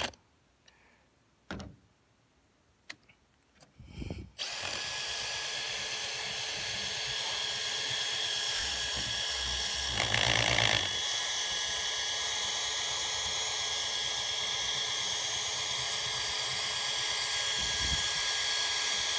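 Makita cordless drill spinning an Astro Pneumatic rubber eraser wheel against a vehicle's paint to rub off a decal: a steady motor whine with the scrubbing of the wheel. It starts about four seconds in after a few faint clicks and is briefly louder about ten seconds in.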